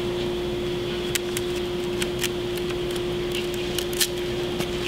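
Steady background hum with a constant tone, overlaid with scattered light clicks and crackles of hands pressing and handling foam-board wing panels and packing tape on a wooden workbench.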